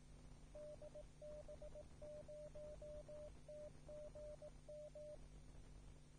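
Faint Morse code identification from the DB0TGM amateur TV repeater: a single steady tone keyed in dots and dashes spelling out the callsign D-B-0-T-G-M, from about half a second in until about five seconds in. A low steady hum lies under it.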